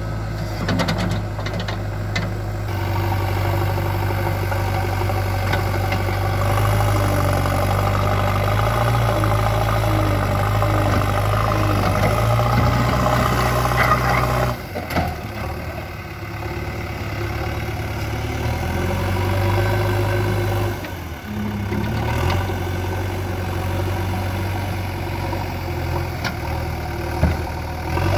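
JCB 3DX backhoe loader's diesel engine running steadily, its pitch stepping up and down with changes in engine speed. It eases off briefly about halfway through and again about three-quarters of the way through.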